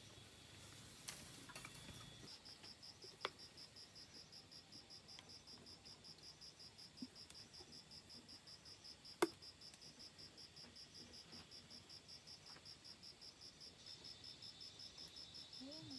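A cricket chirping faintly and steadily: an even, high-pitched pulse of about four or five chirps a second that starts about two seconds in. A few light knocks sound over it, the sharpest about nine seconds in.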